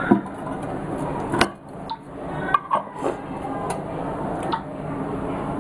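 Kitchen clatter of a frying pan and utensils on a gas stove: a few irregular sharp clicks and knocks, the loudest near the start and about a second and a half in, over steady background noise.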